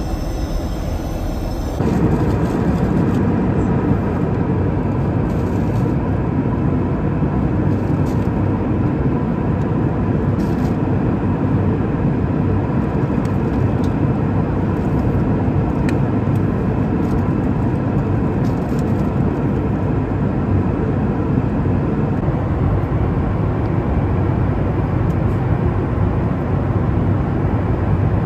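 Steady cabin noise of a Boeing 737 MAX 8 airliner in cruise: a broad low rumble of airflow and CFM LEAP-1B engines with a faint steady hum. A quieter lavatory sound gives way to it about two seconds in.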